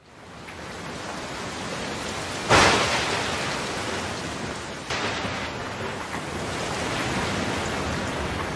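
Thunderstorm: steady rain, with a sharp thunderclap about two and a half seconds in that rumbles away, and a weaker clap near the middle.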